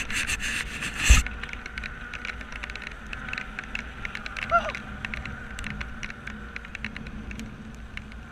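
Dirt bike engines running as the bikes ride along, heard over steady wind noise on the camera microphone, with a sharp loud knock about a second in.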